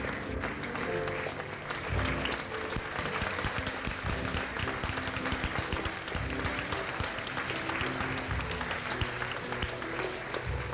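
Audience applauding steadily over instrumental music playing.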